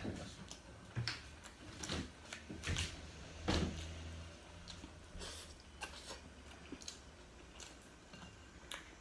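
Close-up eating sounds of someone eating rice with bare hands: scattered wet smacks and clicks of chewing and fingers at the mouth, mixed with fingers picking food off a plate. The loudest smack comes about three and a half seconds in.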